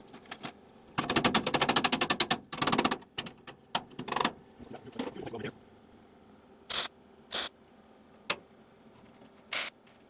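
MIG welder tacking a thin sheet-steel patch panel: a crackling burst of about a second and a half, a few shorter bursts, then single brief tacks one to two seconds apart.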